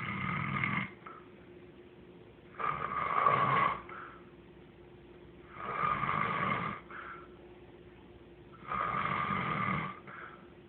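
Snoring: four loud snores, one about every three seconds, each lasting about a second and ending in a short, softer breath.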